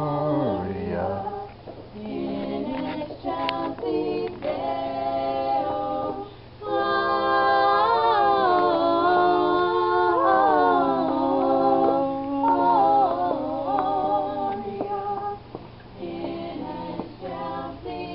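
A small church group singing a Christmas carol without instruments, several voices together, with long held notes in the middle.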